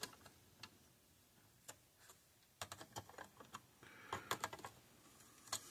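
Faint, scattered clicks and taps of pliers squeezing the push-on wire connectors of a circuit board to make them a tight fit, in two quick clusters: about two and a half seconds in and around four seconds in, with one more click near the end.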